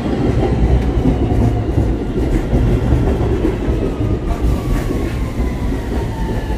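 New York City Subway R160 train pulling into the station past the platform: a loud rumble and wheel clatter, with a faint whine that falls slowly in pitch as the train brakes.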